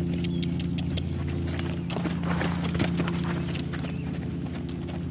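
A ridden horse's hooves striking the sand footing of a round pen, a string of soft hoofbeats, over a steady low hum.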